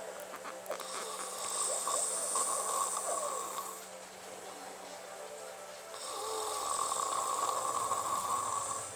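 A man snoring in his sleep after drinking too much: two long, hissy snoring breaths, each about three seconds, with a quieter pause between them.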